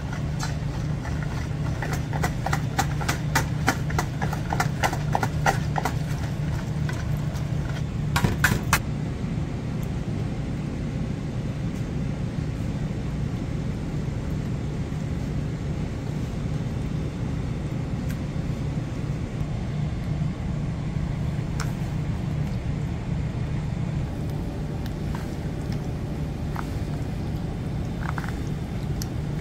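Wire whisk beating a marinade in a plastic mixing bowl, its wires clicking against the bowl about five times a second, with a short, louder flurry about eight seconds in. After that there are only occasional soft knocks as chicken is worked into the marinade, over a steady low hum.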